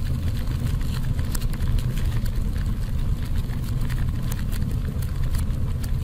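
Sound effect of roaring flames: a steady low rumble with scattered crackles.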